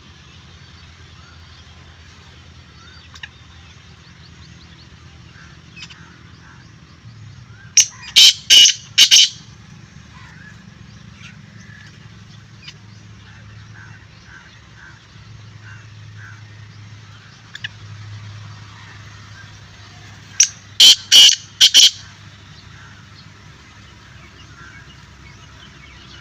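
Black francolin calling twice, each call a quick series of about four loud, harsh notes, the second about twelve seconds after the first. A low steady hum and faint chirps of other birds lie underneath.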